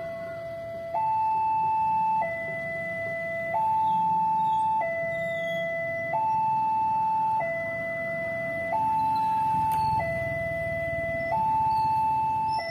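Railway level-crossing warning alarm sounding a two-tone hi-lo signal, switching between a lower and a higher tone about every 1.3 seconds: the crossing's warning that a train is approaching.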